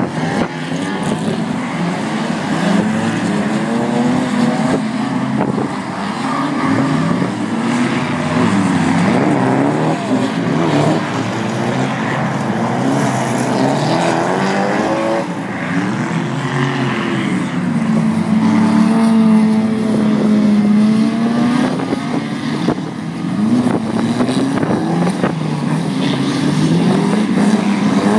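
Several drift cars' engines revving hard, their pitch rising and falling again and again as they slide through the corners, with one engine held at steady revs for a few seconds about two-thirds of the way through.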